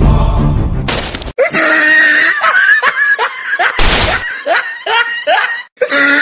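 Background music cuts off about a second in with a short crash of noise, followed by loud, repeated high wavering cries from a man's voice, broken by a second crash about four seconds in: dubbed comedy sound effects.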